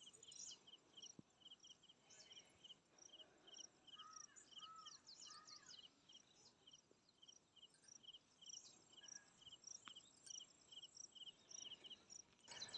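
Faint open-air ambience: an insect chirping in short, evenly spaced high pulses, with a few soft bird notes about halfway through.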